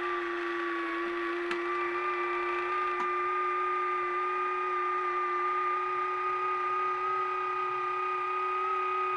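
Omnibot 2000 robot's small electric gear motor running the restored tray mechanism, a steady whine at an even pitch, with a couple of light clicks near the start.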